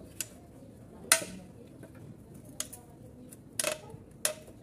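Metal scraper blade prying at and knocking against the lid and rim of a small tin paint can: a handful of sharp metallic clicks at uneven intervals, the loudest about a second in.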